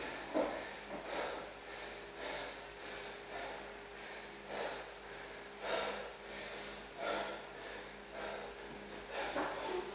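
A man breathing hard, with a heavy breath about once a second: winded from hard exercise.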